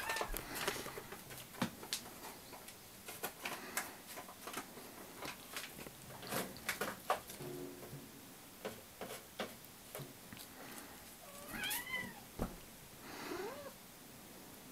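Domestic cat meowing to demand food: one call at the start, then two rising-and-falling meows about twelve and thirteen seconds in. Short light clicks and taps are scattered between the calls.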